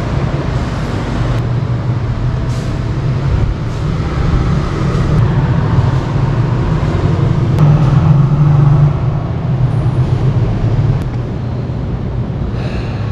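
A steady low droning hum under a rushing wash of noise, loudest around the middle, with a few faint ticks.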